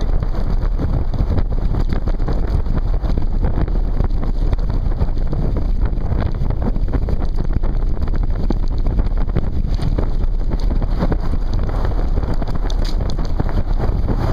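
Wind buffeting a handlebar-mounted camera's microphone as a mountain bike rolls along a rough dirt track, with the bike rattling and knocking over the bumps throughout.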